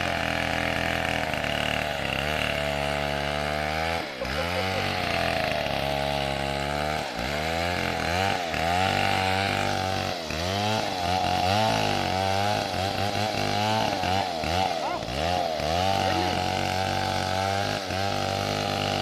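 Stihl 070 two-stroke chainsaw engine running. Its speed repeatedly drops and climbs back, every second or few, and more often in the second half.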